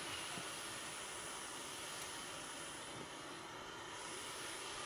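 Backpacking gas canister stove burning at an open flame, giving a steady hiss.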